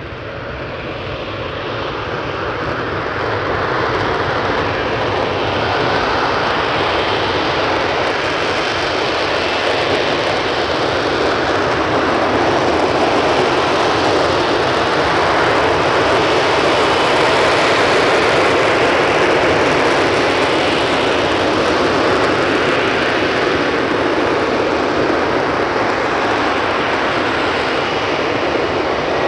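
Lockheed Martin F-35B Lightning II hovering: the jet's single F135 engine and shaft-driven lift fan give a dense, very loud roar that grows over the first few seconds and then holds steady.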